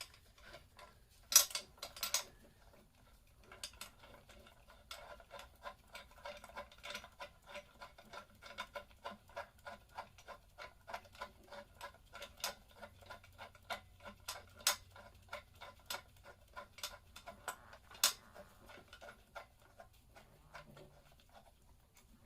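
Two sharp metallic knocks, then a long, even run of light metal clicks, about three a second, from hand tools working on a Lifan LF250 motorcycle engine during its teardown.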